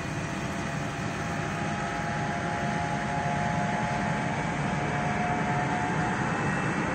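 Distant Boeing 757 twin jet engines running, a steady rush of noise with a thin whine in it, growing slightly louder as the airliner prepares for its takeoff.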